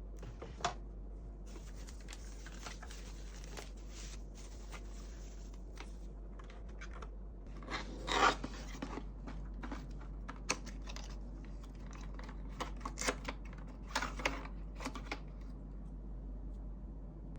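Rustling and scattered, irregular clicks and knocks as a mechanical keyboard and its packaging are handled, over a steady low hum. The rustling comes early and a single knock about eight seconds in is the loudest.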